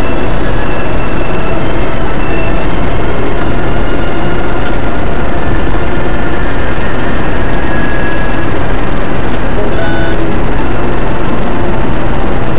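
Steady loud road and engine noise inside a moving car, picked up by a dashcam microphone, with a few faint short tones coming and going.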